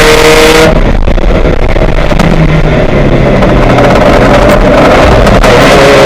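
Race car engine running very loud, its pitch climbing under throttle, then the note drops away suddenly under a second in. It runs at a lower, steadier note for a few seconds, and near the end the engine climbs in pitch again as it accelerates.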